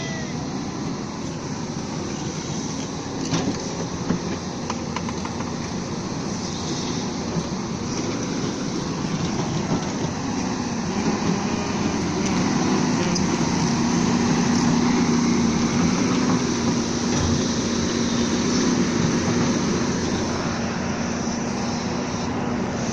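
Volvo excavator running steadily, its engine hum growing louder from about halfway through, then easing slightly near the end.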